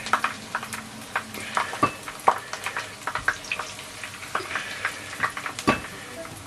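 Hot oil in a pan crackling and sizzling just after the heat is turned off, with scattered sharp pops and clicks as crispy fried pieces are lifted out.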